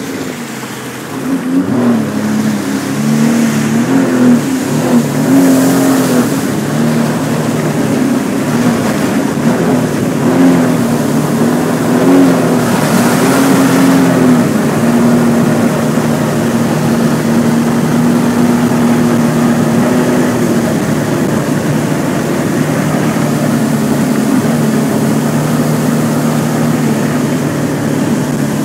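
Sea-Doo RXP-X personal watercraft engine running, its pitch rising and falling with the throttle for the first half, then holding steady and settling a little lower about two-thirds of the way through.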